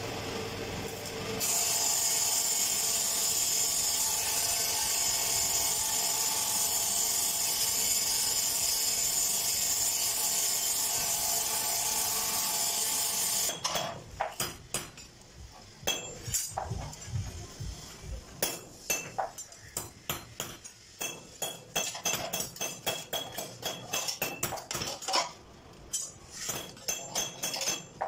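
An electric welding arc sizzles steadily on steel pipe for about the first half. It cuts off, and then comes a series of sharp metallic clinks and taps as steel rods are handled and set on a steel work table.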